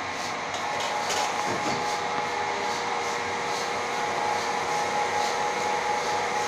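Vertical insert moulding machine running with a steady mechanical hum and faint regular ticking, and a sharper click about a second in.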